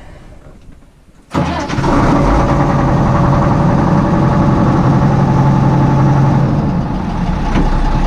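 Case IH 1070 tractor's diesel engine being started with a little throttle: it catches suddenly about a second in and then runs steadily, easing off slightly near the end.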